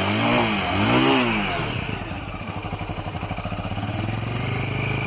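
Vento Tornado 250's 250 cc two-valve engine blipped twice, the pitch rising and falling each time, then dropping back to a steady idle with an even pulsing beat.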